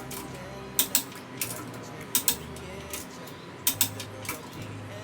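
Torque wrench clicking on the wheel's lug bolts as they reach 110 foot-pounds: sharp metallic clicks in close pairs, about every one and a half seconds.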